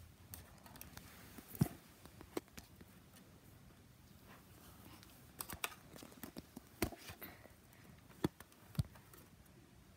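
Scattered light clicks and taps as a plastic doll closet with acrylic shelves is handled and set in place, with about half a dozen sharper knocks among fainter ones.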